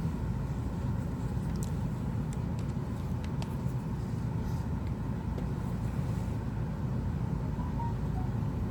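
Steady low background rumble, with a few faint light clicks between about one and a half and three and a half seconds in.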